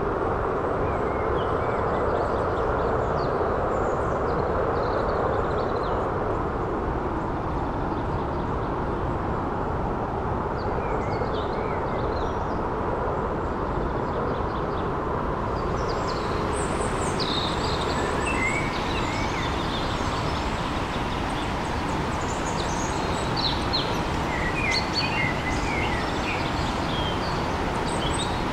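A stream of running water rushing steadily, with birds chirping over it, more often in the second half.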